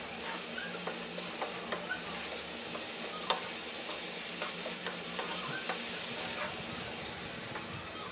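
Chopped onion, potato and tomato with spices and garlic paste sizzling in mustard oil in a frying pan, the lightly frying stage, while a spatula stirs them. A steady sizzle with scattered scrapes and clicks of the spatula against the pan, one a little louder about three seconds in.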